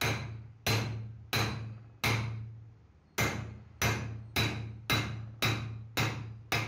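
Hammer blows on a steel drift driving a truck universal joint (spider) bearing cup in the drive shaft yoke, about eleven strikes at a steady pace of roughly two a second with a short pause partway through, each leaving a metallic ring.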